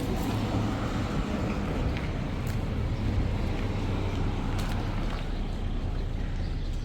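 An engine running steadily at an even pitch, a low hum under a noisy wash, with a few faint clicks.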